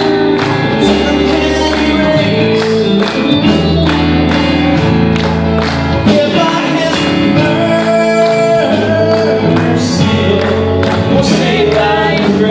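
Live gospel band playing an upbeat song on banjo, acoustic guitar, piano and drum kit, with the drums keeping a steady beat.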